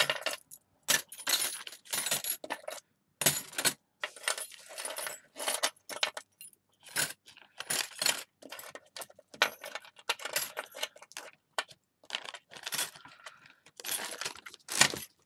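Handful of small antique-silver metal skeleton key charms clinking and jingling against each other as they are handled and scooped up off paper, in irregular clusters of light clinks.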